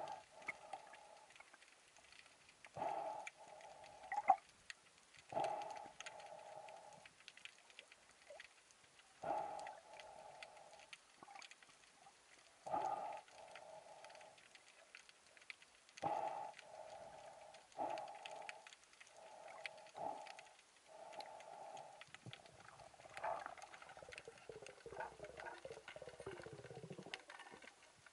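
Faint underwater sound picked up by a camera in its housing: a steady crackle of small clicks, with short muffled tones coming back every one to four seconds and a wavering lower tone near the end.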